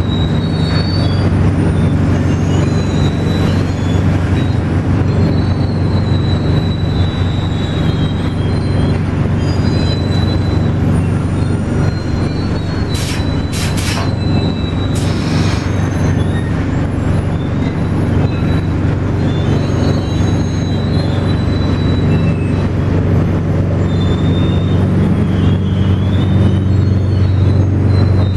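Steady low mechanical drone of machinery running, with a faint high squeal that wavers in pitch. Two or three short hisses come about halfway through.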